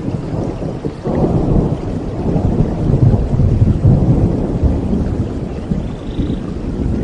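Rolling thunder over steady rain. A low rumble swells about a second in, is loudest around the middle, and dies away near the end.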